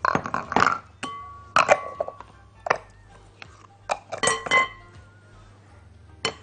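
Glass mixing bowl knocked several times, each sharp clink leaving a short ring, as the flour mixture is tipped and scraped in from a second bowl.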